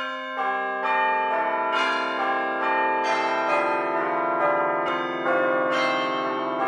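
Bells struck one after another about twice a second, each note ringing on and overlapping the next, starting abruptly.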